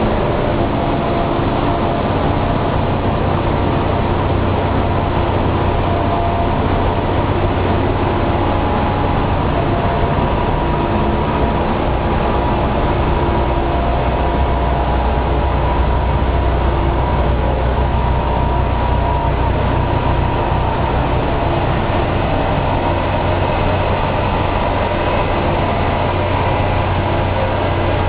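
Paper machine running: a steady, loud mechanical drone with a strong low hum and a few faint steady whining tones above it.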